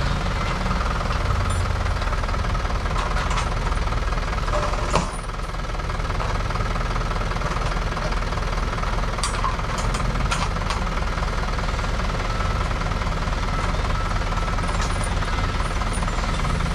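An engine running steadily at an even, low pitch, with one sharp click about five seconds in.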